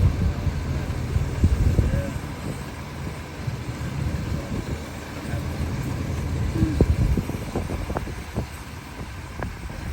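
An engine idling low and steady at a rail work site, with faint distant voices and a few sharp metallic knocks and clinks in the second half.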